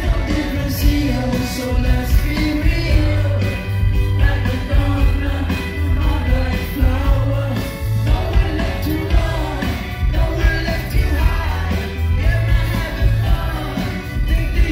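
Rock band playing live: a singer's voice over electric guitars, bass and drums, with a heavy, booming low end, as heard from the crowd in a concert hall.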